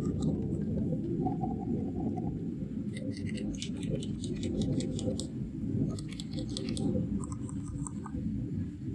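Fast, continuous typing on a mechanical keyboard with Fantasy Virus switches and One Piece keycaps, with the key strikes running together, and sharper clicks standing out in clusters about three seconds in and again around six to eight seconds.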